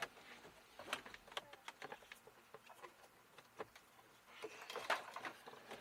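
Scattered light scrapes and clicks of a cabin air filter being worked out of its plastic housing behind a Jeep Wrangler's glove box.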